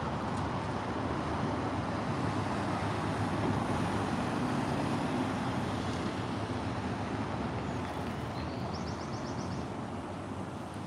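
Steady road traffic noise from passing cars, swelling a little and easing off. A brief, high, rapid ticking comes about three-quarters of the way through.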